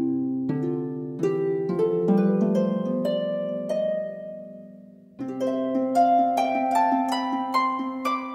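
Instrumental background music of plucked-string notes climbing in arpeggios over a held low chord, with a new phrase starting about five seconds in.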